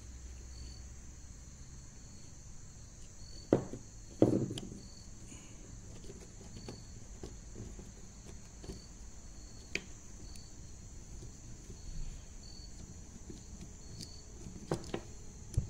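Scattered metal clicks and clinks from the cast-iron governor bracket of a 1926 Fairbanks Morse Model Z engine being worked loose with a flathead screwdriver, the two loudest about three and a half and four seconds in. A faint short high chirp repeats throughout over a steady low hiss.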